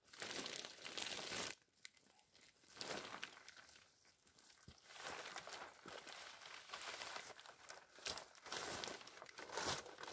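Black plastic drum liner bags crinkling and rustling in several bursts as they are slid and pulled along wooden bed poles.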